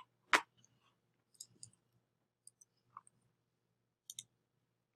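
Sparse computer mouse clicks and key taps: one sharper click just after the start, then a handful of faint, light ticks spread through the rest.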